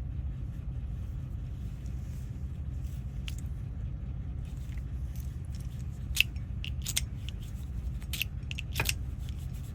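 Sharp metallic clicks from about six seconds in, a handful of them, irregularly spaced: a key worked in a freshly cleaned and reassembled Camaro door lock cylinder as it is tested, over a steady low hum.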